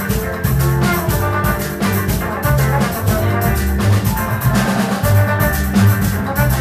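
Live Afro-Latin instrumental band playing: drum kit and hand percussion keep a steady beat under a moving electric bass line, with held melody notes from horns and keyboards.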